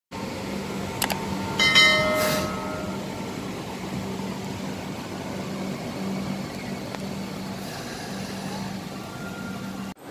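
Light rail train running past a stop with a steady hum. About two seconds in comes a short ringing signal, the loudest sound.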